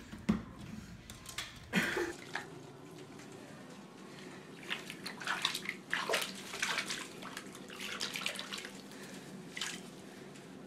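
Bathwater sloshing and splashing in a bubble-filled tub as ferrets paddle and are washed by hand, with a run of quick splashes in the second half.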